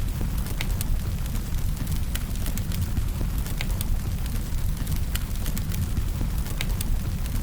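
Wood fire burning with a steady low rumble and irregular sharp crackles and pops, a few a second.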